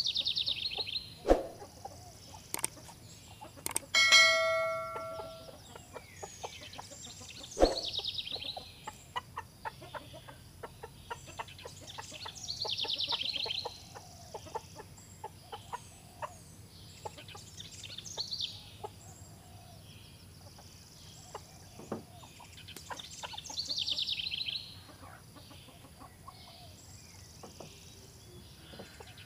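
Chickens in a poultry house, with scattered clicks and knocks and short high trills recurring every five seconds or so. A brief bell-like ringing tone sounds about four seconds in.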